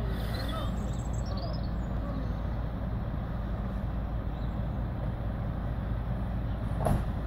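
Articulated lorry's diesel engine running steadily at low revs as the truck manoeuvres slowly, a deep even rumble. A brief knock near the end.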